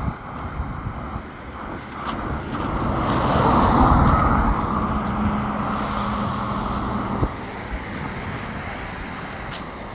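A car passing by on the road, its noise swelling to a peak about four seconds in and then fading, with a low engine hum as it goes away. A single click sounds a little after seven seconds.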